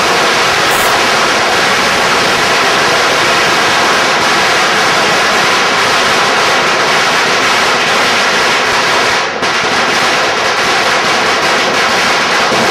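Firecrackers going off in rapid, unbroken succession, a loud continuous crackle of bangs with a brief break about three-quarters through.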